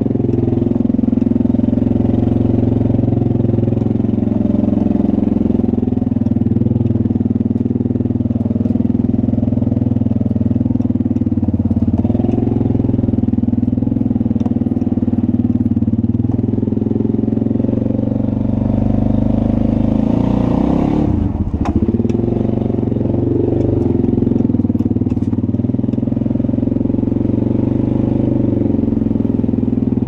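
Yamaha Wolverine side-by-side's engine running steadily at low speed, heard from inside the cab, its pitch shifting briefly about twenty-one seconds in.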